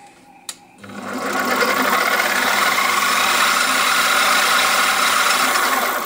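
Milling machine's spindle drive motor switched on with a click, spinning up over about a second, then running with a loud, steady mechanical whirr. This drive is the source of the machine's noise, not the very quiet brushless ODrive axis motor.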